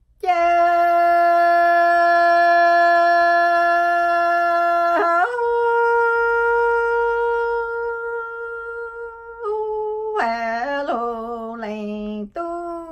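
A woman's solo voice singing a Hmong lug txaj, unaccompanied. She holds one long note for about five seconds, moves to a higher note held for about four seconds, then sings shorter wavering, gliding phrases with brief breaths between them.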